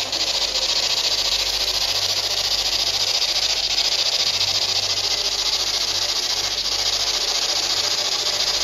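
Steady loud hiss with a low hum beneath, unchanging throughout.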